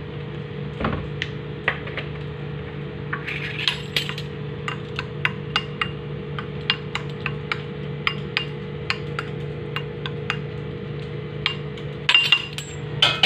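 A spoon clinking against a bowl while mixing cooked rice, in light, short clinks about three a second from about three seconds in, with a louder run of clinks near the end. A steady low hum sits underneath.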